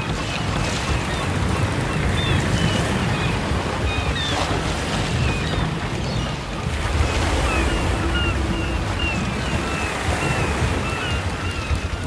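Ocean surf washing and breaking steadily on a beach, with seagulls calling over it in many short, repeated cries.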